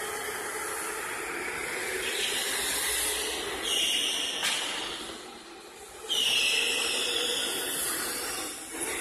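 Electric go-karts running around the track: a steady hiss with a high-pitched motor whine that swells as karts pass close, loudest about four seconds in and again about six seconds in.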